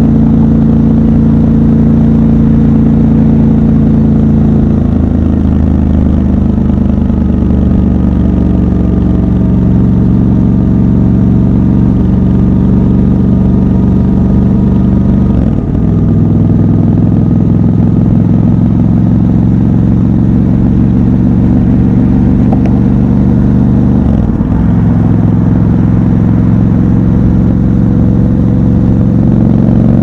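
Triumph Scrambler 1200 XC's 1200 cc parallel-twin engine running under way, heard from the rider's seat. The engine note holds steady and shifts pitch about three times, with brief dips about halfway through and about three-quarters of the way through.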